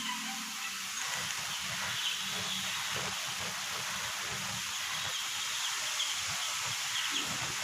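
Steady outdoor hiss with a few faint, short chirps now and then.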